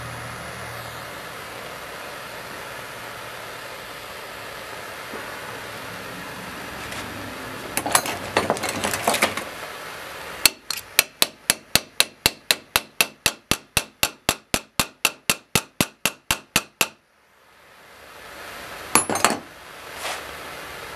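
Steady hiss of a propane torch, then some clattering, then an even run of sharp hammer taps, about four a second for some six seconds, growing fainter: the hot chainsaw file tang being tapped into its handle. A few more clatters follow near the end.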